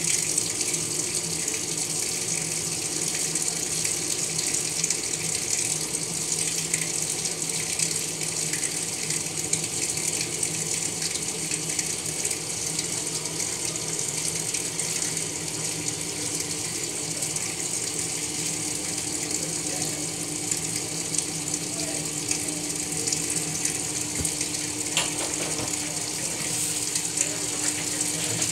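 Maytag MVWX655DW1 top-load washer filling on a hot deep water wash: a steady stream of water rushes into the tub onto the towels. A low steady hum grows stronger from about halfway through.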